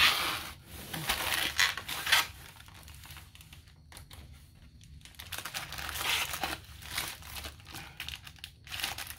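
Rustling and crinkling of a drawstring bag and plastic-wrapped packaging being handled, in irregular bursts, loudest in the first two seconds.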